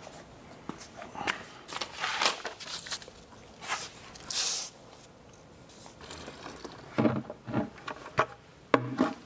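Handling noise of a portable carpet extractor being set up: scattered plastic knocks, scrapes and rustles as its tanks are lifted and moved, with a brief rushing hiss about four and a half seconds in.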